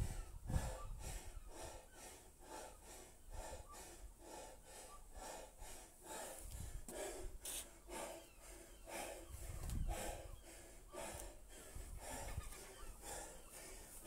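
A man breathing hard and fast, about two breaths a second, out of breath from kettlebell snatches, with a few low thumps.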